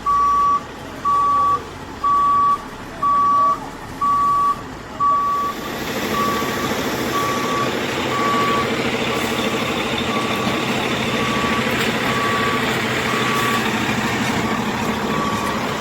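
Crane truck's reversing alarm beeping about once a second as the truck backs up. About six seconds in, the truck's engine comes up louder and runs steadily under the beeps.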